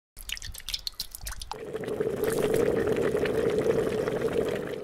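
A few light clicks and small splashes as raw chicken pieces are lowered into broth with chopsticks. About one and a half seconds in, this gives way to the steady bubbling of a pot of tomato soup boiling on a gas stove.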